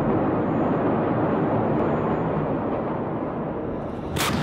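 Field sound from phone footage of the burning Port of Beirut warehouse before the main blast: a steady rushing rumble of the fire heard from a distance, mixed with wind on the microphone, and a sharp crack near the end.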